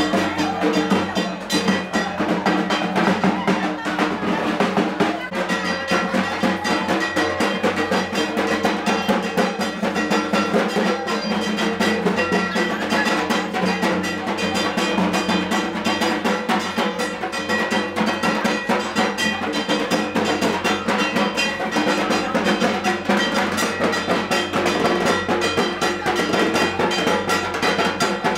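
Fast, continuous dhak drumming with a clanging kansor (metal gong) beat: the ritual music of a Durga Puja aroti accompanying the dhunuchi dance.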